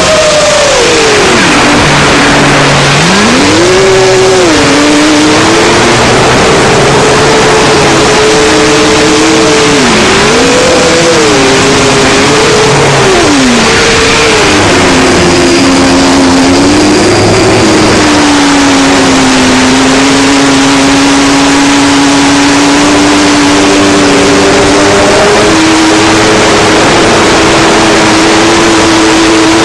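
A 7-inch FPV quadcopter's brushless motors (Racerstar BR2507S) and tri-blade props, heard from its onboard camera. The whine swings up and down sharply with throttle as it carves turns, then holds a steadier pitch for a few seconds near the end of the flight pass. A loud rushing of air runs under it the whole time.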